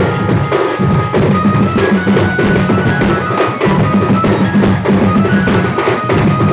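Sambalpuri folk music: fast, dense drumming with a high held melody line over it.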